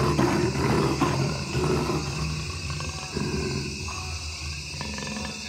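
Calls of a large wild animal from a natural-habitat soundscape recording. The calls are loudest over the first two seconds and come again briefly about three seconds in, over a steady low hum.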